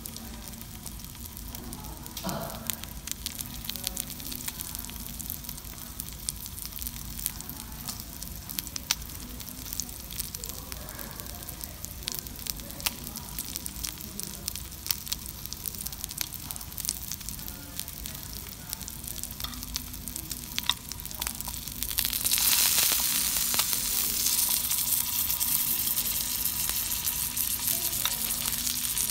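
Cubes of Olein 55 wagyu beef sizzling as they sear in wasabi butter on a flat metal griddle, a steady hiss with frequent small pops and crackles of spitting fat. The sizzle grows louder about three-quarters of the way through.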